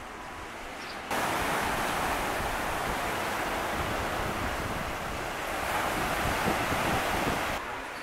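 Black Sea surf washing onto a pebble beach: a steady loud rush of waves that starts abruptly about a second in and falls away just before the end.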